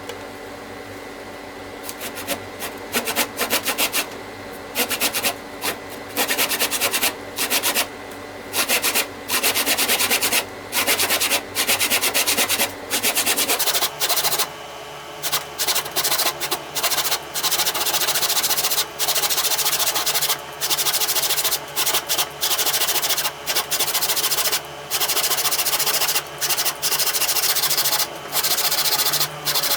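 Wood being worked by hand with an abrasive or rasping tool, in repeated back-and-forth strokes about a second or less each, starting about two seconds in.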